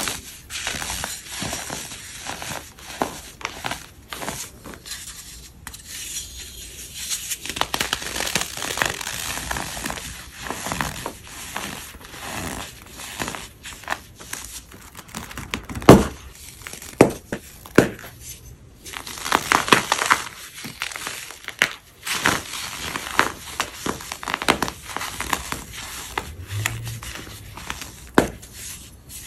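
Dry, chalky powder blocks being crunched and crumbled by hand: a dense run of crackles, with one sharp, loud snap about halfway through and a few more strong cracks just after it.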